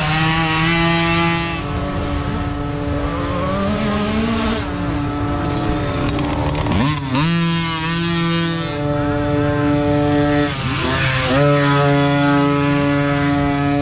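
Micro dirt bike engines running as small bikes ride past on a dirt track, the engine pitch climbing sharply twice as the throttle opens.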